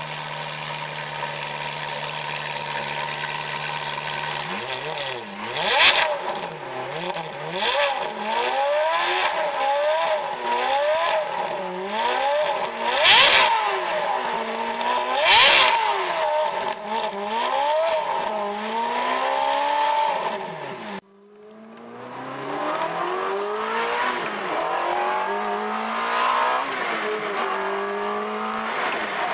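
Ferrari F430's V8 through a Meisterschaft race exhaust, idling, then revved again and again in rising and falling sweeps with three sharp cracks at the loudest peaks. After a sudden cut it pulls away from inside the cabin, the revs rising in steps as it accelerates.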